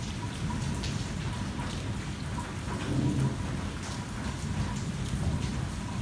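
Heavy rain drumming on a car's roof and windshield, heard from inside the cabin, with sharp taps of single drops over a steady patter. A low rumble of thunder swells about three seconds in.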